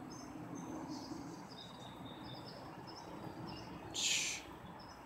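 Small birds chirping in short, high calls over a low background hum, with a brief hiss about four seconds in.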